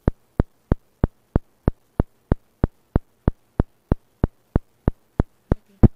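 A steady series of identical sharp clicks, about three a second, like a ticking clock or metronome, with a slightly louder click near the end.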